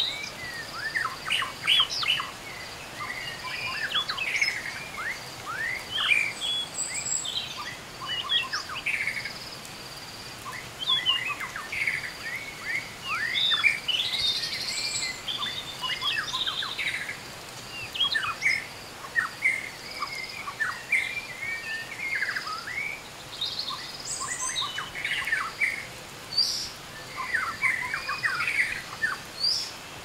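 A chorus of small birds chirping: many quick, overlapping calls that sweep down in pitch, over a faint steady high insect drone and the soft hiss of light rain.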